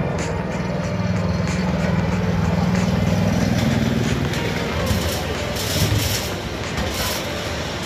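Miniature ride-on train passing close by: the locomotive's low motor hum swells as it goes past and fades, then a quick run of clicks and rattles as the passenger cars roll by on the track.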